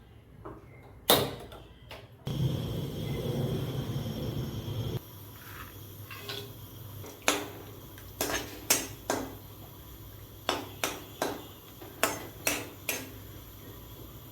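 A metal spoon knocking and clinking against a cooking pot, a string of about ten sharp taps in the second half, over a steady faint hiss. Near the start a loud, low rushing noise runs for about three seconds and cuts off suddenly.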